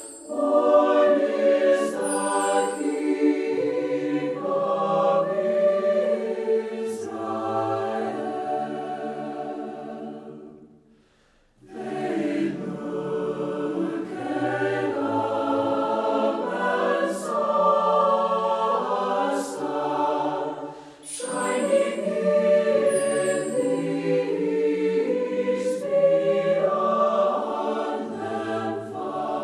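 A choir singing a slow Christmas song in long, held phrases. There is a short pause about eleven seconds in and a brief dip about twenty-one seconds in.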